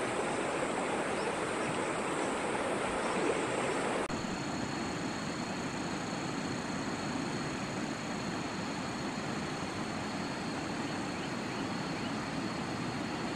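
A shallow river running over stones, a steady rushing of water. About four seconds in the sound cuts to a fainter, more distant river flow with a steady thin high tone above it.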